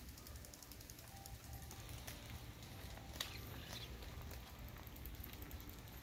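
Faint outdoor ambience while walking: a low rumble of wind on the microphone with light, quick ticking. A sharp click and a short high chirp come about three seconds in.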